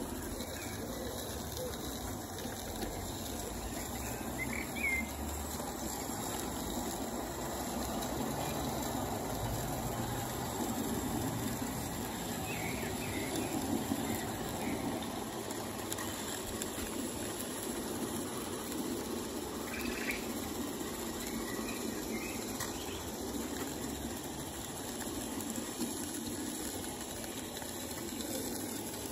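Small live-steam garden-railway Garratt locomotive running with a train of wagons: a steady steam exhaust and wheels on the rails. A few short bird chirps come through now and then.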